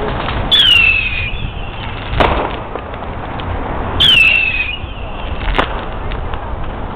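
Two whistling fireworks, each launched with a short whistle that falls in pitch and then bursting with a sharp bang about a second and a half later, over a steady low rumble.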